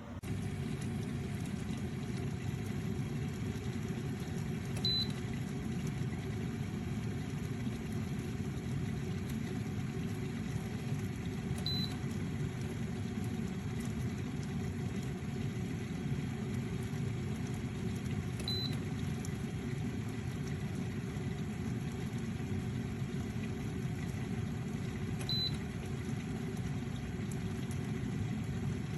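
Electric kettle heating water with a steady low rumble, and a short high beep about every seven seconds.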